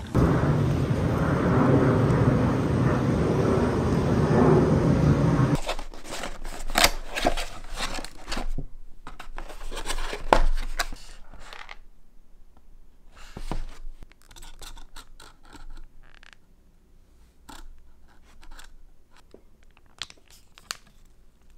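A loud steady rushing noise that cuts off suddenly about five and a half seconds in. It is followed by irregular clicks, scrapes and tearing sounds of things being handled, which grow sparser and fainter toward the end.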